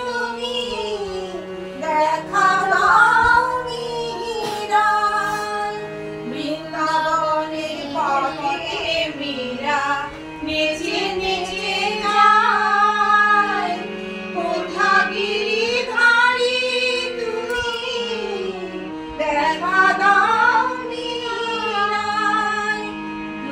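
Music: a woman singing a flowing melody over steady held accompanying notes.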